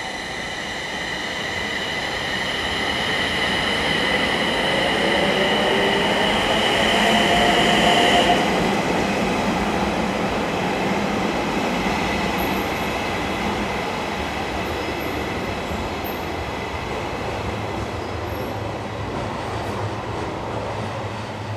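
JR East E721-series electric multiple unit pulling out of a station. A whine from its traction equipment rises in pitch as it accelerates and is loudest about eight seconds in, cutting off there. The train's running noise on the rails then carries on as it moves away.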